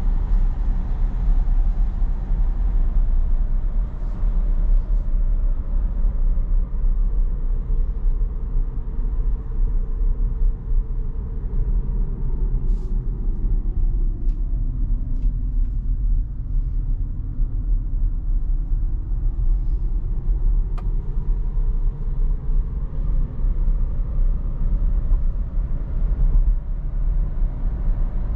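Road and tyre noise of a moving Tesla electric car, heard as a steady low rumble inside the cabin. Its higher part sinks in pitch through the middle and then rises again, with a few faint ticks partway through.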